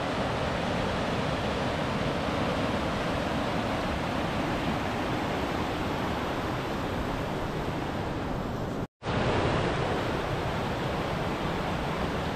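Steady, loud rush of fast-flowing water, such as a waterfall or whitewater river. It cuts out for an instant about nine seconds in, then resumes unchanged.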